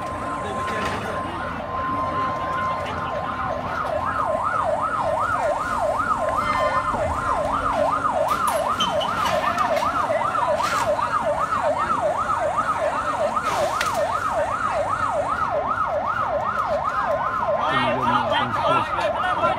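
Ambulance siren in a fast yelp, its pitch sweeping up and down about three times a second. The yelp takes over about three seconds in and runs on steadily.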